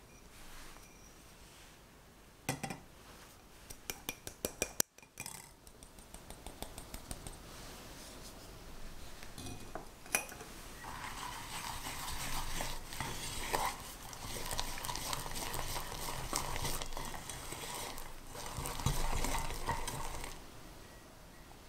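A fine-mesh metal sieve tapped to sift cornstarch, giving a run of light taps over the first several seconds. Then a wire whisk stirs and scrapes briskly against an enamel saucepan for about ten seconds, stopping shortly before the end.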